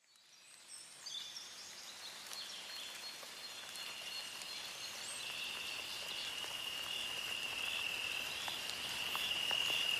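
Outdoor nature ambience: a steady high trill with scattered short chirps over a soft hiss, fading in over the first second, growing slowly louder, then cutting off suddenly at the end.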